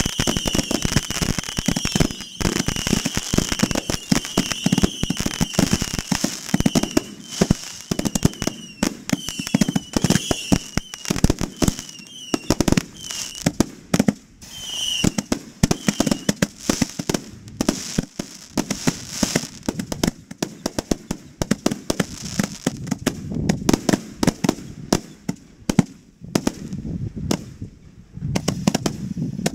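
Fireworks going off in a rapid, dense barrage of bangs and crackles. High wavering whistles run over the bangs through the first half and then die away.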